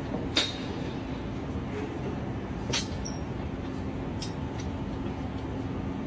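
Steady outdoor city noise high above the street, a broad hiss with a low traffic rumble and a faint steady hum. Two sharp clicks sound, about half a second in and again near three seconds.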